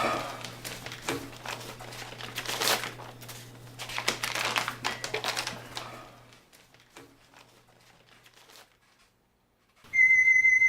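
Rustling and crinkling with scattered light clicks, like things being handled, over a low hum; both stop about six seconds in. Near the end a steady high-pitched tone begins abruptly.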